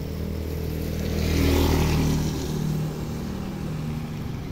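A motor vehicle's engine passing close by, a steady low running note that swells to its loudest about a second and a half in, then eases off.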